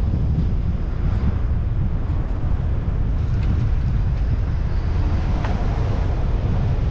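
Steady low rumble of wind buffeting the microphone and road noise from a moving car, with a couple of faint ticks partway through.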